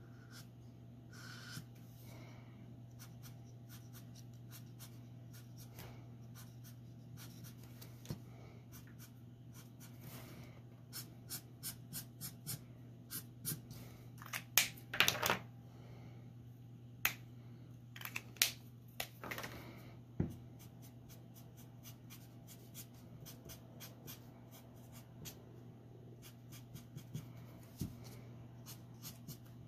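Copic marker tips scratching and tapping on paper in many short strokes, with a handful of louder clicks and knocks about halfway through as markers are handled. A steady low hum sits underneath.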